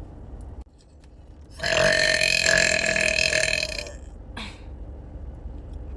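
A woman's long, loud burp, held at a steady pitch for about two seconds, starting about a second and a half in: a trapped burp being forced up from the stomach. A brief second sound follows about half a second after it ends.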